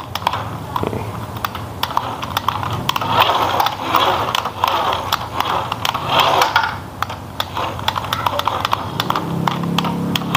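Cheap single-speed toy radio-controlled dump truck's small electric motor and plastic gears running in short spurts as it is driven on a wooden tabletop, with a rapid stream of clicks and ticks. A low hum comes in near the end.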